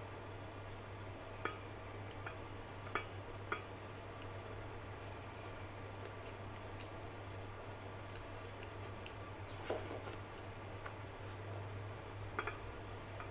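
Fingers mixing rice and dal on a plate: scattered sharp clicks of fingers against the plate and soft squishing, with a short louder burst about ten seconds in, over a steady low hum.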